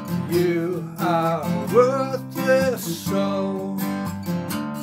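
Acoustic guitar strummed in a steady rhythm, with a man's voice singing a wavering, bending line from about one second in until about three seconds.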